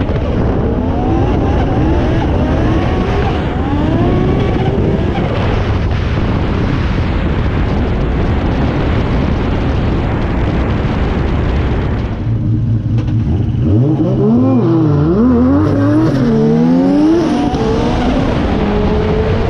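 Drift car engine heard from an onboard camera, its revs swinging rapidly up and down through the corners over a constant rushing noise. About twelve seconds in the engine note drops briefly, then the revs climb and swing up and down hard again.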